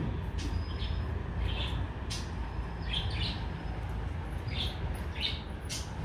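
Pet budgerigars chirping softly in short, scattered chirps, about eight over a few seconds, over a steady low hum.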